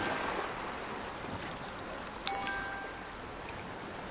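Magical sparkle chime sound effect: a cluster of high bell-like tones that rings out and fades away, twice, the first already fading at the start and the second struck about two seconds in.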